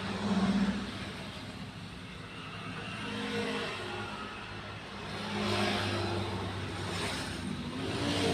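A motor vehicle engine running in the background, its pitch shifting up and down, swelling louder about half a second in and again past the middle.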